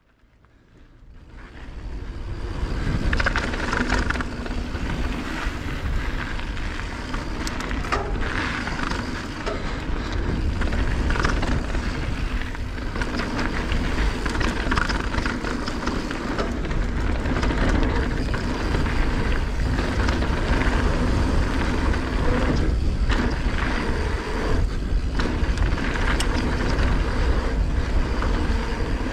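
Mountain bike rolling fast down a dirt trail: steady wind rumble on the microphone, tyres on loose gravel and dirt, and frequent rattles and knocks of the bike over bumps. It fades in over the first two seconds.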